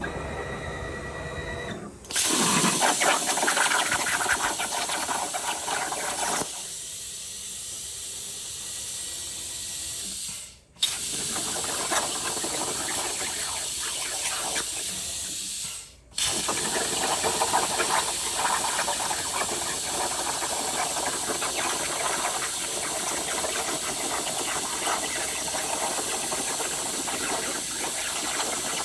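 CNC plasma cutter torch cutting steel plate: a loud, steady hiss of the arc and air jet that starts about two seconds in. The hiss drops out briefly twice, near the middle, as the arc stops and restarts.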